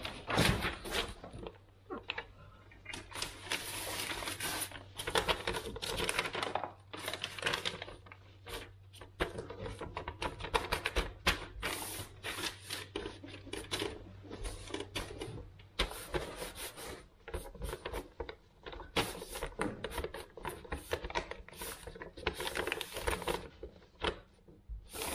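Paper wall template crinkling and rustling as it is handled and pressed into place against the wall, in a run of irregular crackly bursts. A faint low hum runs underneath and stops about two-thirds of the way through.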